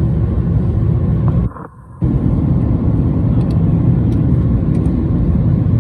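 Loud, steady low rumble of an aeroplane after landing, broken by a sudden half-second dropout about one and a half seconds in.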